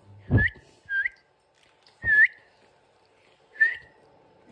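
A person whistling short upward-sliding notes, four in a row about a second apart. The first and third are the loudest and come with a low thump.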